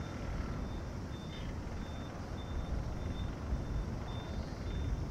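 Distant jet engines of a four-engine Boeing 747 rumbling low at the start of its takeoff, growing a little louder near the end. A faint high beep repeats about every two-thirds of a second.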